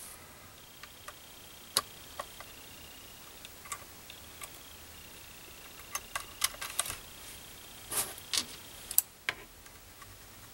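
Scattered small clicks and ticks of a small Phillips screwdriver and plastic parts on an HO scale model locomotive's underside as a coupler pocket screw is taken out and the coupler pocket removed. The clicks come singly at first, then bunch together about six to seven seconds in and again around eight to nine seconds.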